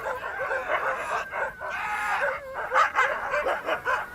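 A team of sled dogs barking and yelping over one another, many wavering calls at once.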